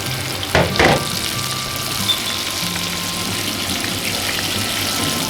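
Small mackerel pieces deep-frying in hot oil, a steady sizzle with two louder crackles just under a second in.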